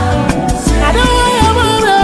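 Music: a song with a singing voice over a steady bass and beat.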